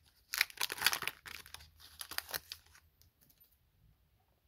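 Foil wrapper of a Panini Chronicles baseball card pack being torn open and crinkled by hand, a quick run of sharp crackling rustles that stops about three seconds in.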